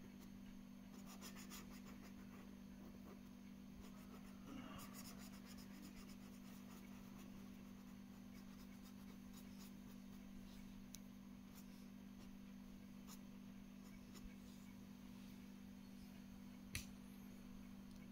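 Faint scratching of a felt-tip sketch pen colouring on paper, in scattered strokes, over a steady low hum. A single sharper click comes near the end.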